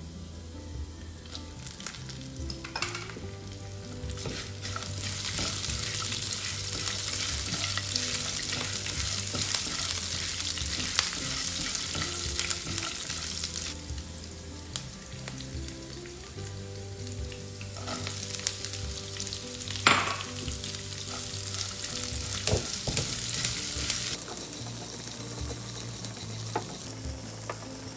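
Oil sizzling in a non-stick frying pan as a tempering of lentils, cashews, dried red chillies and green chillies fries, with sliced onion stirred in with a spatula. The sizzle grows louder about five seconds in, and a few sharp knocks come later.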